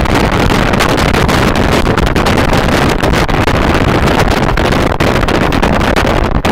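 Loud, steady wind rush buffeting the microphone aboard a fast motorboat under way, blended with the hull and engine noise of the boat running over the water.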